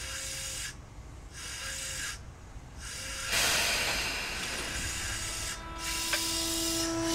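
Tobu 9000 series electric train pulling away from a stand: air hissing, at first coming and going and then steadier from about three seconds in. About two thirds of the way in, a steady electric whine joins it, the AFE chopper control and 150 kW DC motors taking power as the car starts to move.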